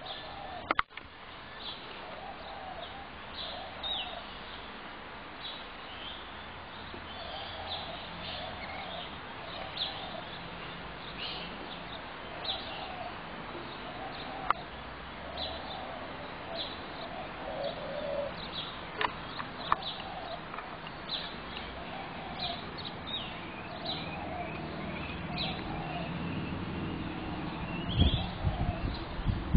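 Spotted doves cooing over and over in low, mostly paired notes, while small birds chirp in short high notes throughout. There are a few sharp clicks, and low rumbling thumps near the end.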